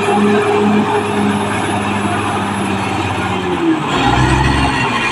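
Caterpillar D6R crawler bulldozer's diesel engine running under steady power. About four seconds in, a deeper rumble comes in and the engine note starts to shift.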